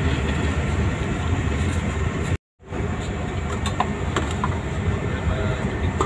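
Steady low rumble of a ship under way, engine and wind noise across the open deck, broken by a split-second drop to silence about two and a half seconds in. A few light clicks sound in the second half.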